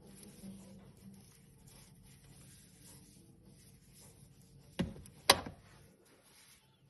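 Faint rubbing of gloved hands handling a wristwatch and its leather strap, then two knocks about half a second apart, the second louder, as the watch is set down on a hard surface.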